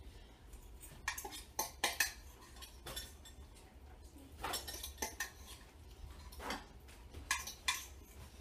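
Utensils clinking and scraping against bowls while noodles are eaten: a scattering of short, irregular clicks.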